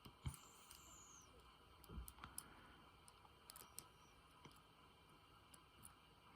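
Faint, scattered small clicks and taps of a lock pick working inside an American 1100 padlock, pushing protruding pins down so the plug follower can pass.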